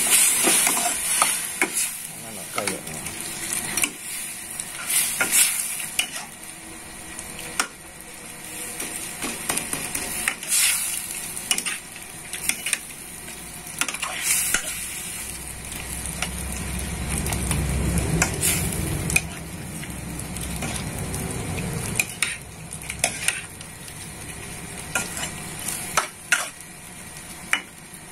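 Squid and shrimp frying in a wok with a steady sizzle, while a spatula scrapes and knocks against the pan as the food is stirred, in many short sharp clicks.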